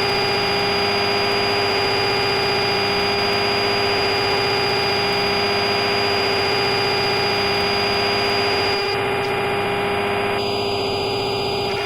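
Simulated CNC lathe machining sound from simulator software: a steady buzzing hum at a fixed pitch under a noisy hiss. The hiss changes character about nine seconds in and again near the end.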